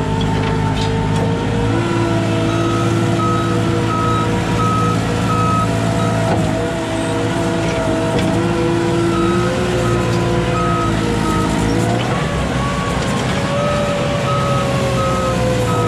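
Piggyback forklift's engine running under load, its pitch rising and falling as it works through the mud. A high back-up alarm beeps in steady runs, stopping and restarting twice.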